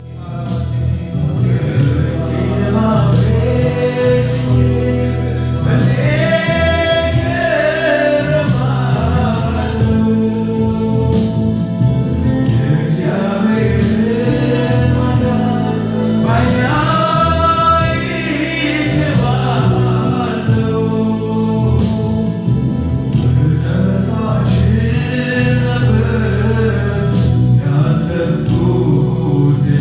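Gospel song: a choir of voices singing over instrumental backing with a steady beat.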